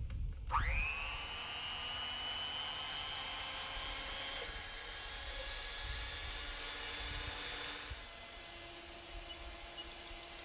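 Hamilton Beach electric hand mixer switched on about half a second in, its motor whining up to speed and then running steadily as the whisk beats whipping cream in a plastic cup. The whirring grows louder and brighter from about four and a half seconds to eight seconds in, then settles a little quieter.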